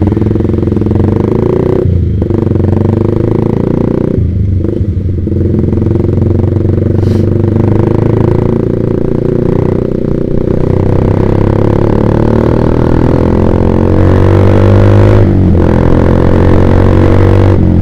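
Yamaha Vixion single-cylinder motorcycle engine running loudly through a Proliner TR1 R aftermarket racing exhaust while being ridden. The engine note rises gradually under acceleration and drops briefly three times, as for gear changes.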